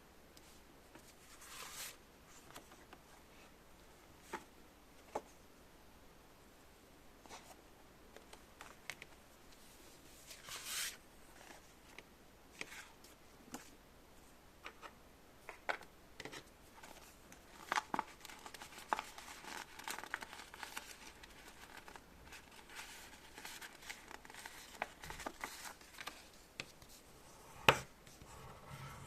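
Scattered light clicks and short stretches of rustling and scraping from small objects being handled, with one sharper click near the end.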